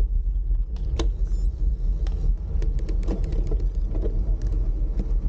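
Steady low rumble of a bicycle ride, with wind and road noise on the microphone, broken by scattered clicks and rattles; one sharp click comes about a second in.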